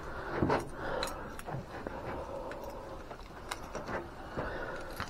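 Low background noise with a few faint, scattered clicks and light knocks.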